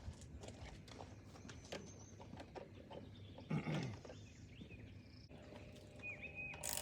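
Quiet outdoor sounds: scattered light clicks and knocks, a brief louder low pitched sound about halfway through, and a short bird chirp near the end.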